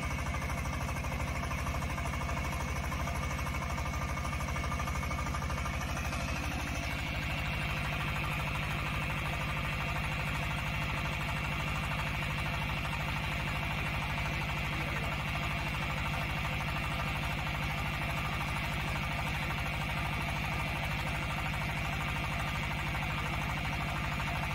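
Engine of a small portable DH150 water well drilling rig running steadily. Its note shifts slightly about six or seven seconds in.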